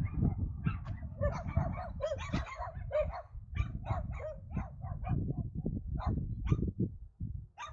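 A dog barking over and over in short, sharp barks and yips, two or three a second.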